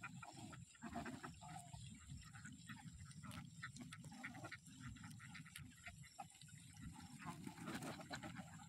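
Faint, continuous quacking and chatter of a large flock of domestic ducks, with many overlapping short calls.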